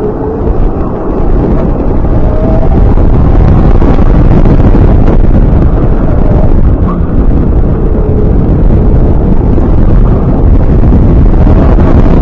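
Onboard sound of a 35-horsepower BSR electric racing kart at speed: heavy wind buffeting on the camera's microphone, with a faint electric motor whine rising and falling through the corners.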